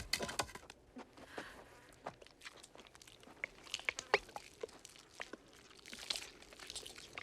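Scattered crunching and wet clicking sounds, a film sound effect around the carcass of a dead giant worm.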